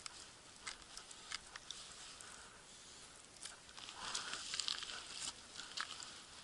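Faint handling noises at an ice-fishing hole: scattered small clicks and ticks of ice and gear, with a short crunching rustle about four seconds in.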